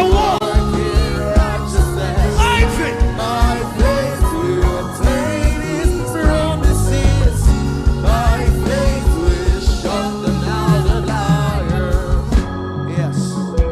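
Live gospel worship band playing with drums, bass and organ under a wavering, ornamented melody line. The drums drop out about twelve seconds in, leaving sustained organ chords.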